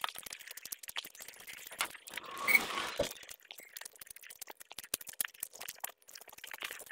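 Close-up eating sounds: wet, sticky clicks of fingers mashing rice with curry on a metal plate, and the mouth chewing and smacking as handfuls go in. A louder noisy rush comes about two and a half seconds in.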